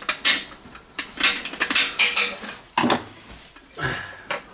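A metal tool scraping rust off the rusted metal of an old sewer drain, in several hard scraping strokes with clinks of metal.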